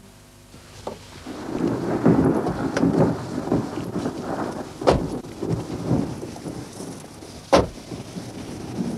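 Thunder rumbling in an approaching storm, starting about a second in, with two sharp loud cracks about five and seven and a half seconds in.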